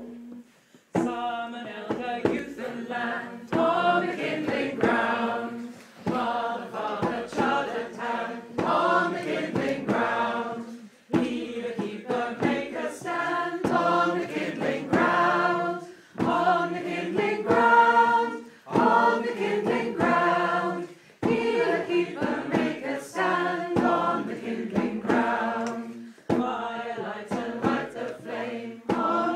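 Choir singing a song in phrases, with short breaks between them.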